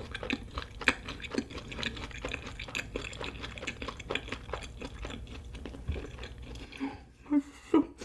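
Close-miked chewing of a mouthful of food with the mouth closed: a dense run of small clicks from the mouth, with two louder mouth sounds near the end.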